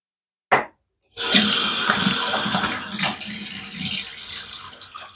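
A short knock about half a second in, then a tap running into a bathroom sink with some splashing, as when a safety razor is rinsed between shaving passes.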